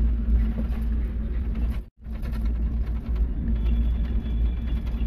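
Steady low rumble and hum of a moving vehicle heard from inside, without speech. The sound drops out completely for an instant about two seconds in.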